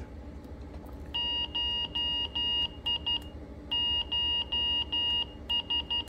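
Quansheng UV-K5 handheld radio sounding its CW keying tone as its keys are pressed in Morse mode: two groups of steady, high-pitched beeps, each a run of longer tones followed by a few quick short ones. The beeps send "HI" by the T9 method rather than as Morse code.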